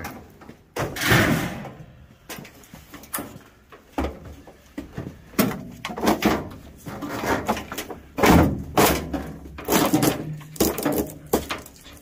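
Irregular clunks, knocks and rattles of a washing machine's sheet-metal cabinet and parts being handled while its wiring harness is pulled out, with the loudest knocks about a second in and about eight seconds in.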